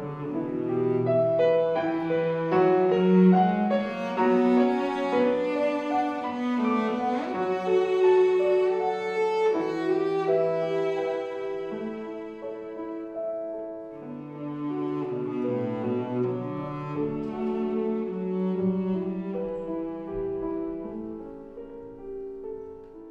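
Cello played with the bow over grand piano accompaniment, a classical cello-and-piano arrangement. The playing is fuller in the first half, drops to a softer passage about halfway through, and dies down near the end.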